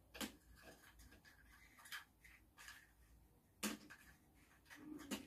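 Near silence broken by a few faint, scattered clicks of chopsticks and beans tapping against small bowls as beans are picked up one at a time; the plainest click comes about three and a half seconds in.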